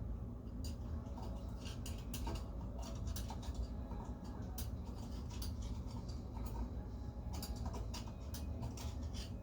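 Irregular light clicks, taps and scrapes of small hard parts being handled during hands-on plumbing work, over a low steady hum.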